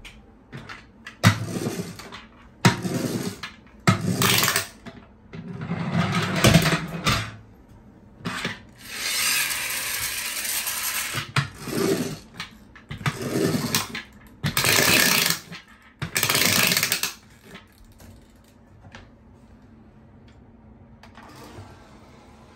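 Spring motor of a pull-back toy car, its gears whirring and ratcheting in about nine separate bursts of a second or two each, as the toy ambulance is run back and forth on a hard plastic surface and let go. The bursts stop a few seconds before the end.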